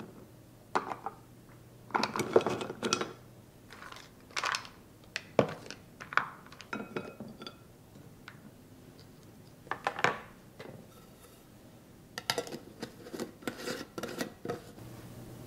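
Small crisp cookies clattering against each other and the sides of a clear jar as they are dropped in and pushed down with a plastic scoop, in a string of light knocks and rattles. Near the end, the jar's aluminium screw lid is put on and twisted shut with a quick run of clicks and scrapes.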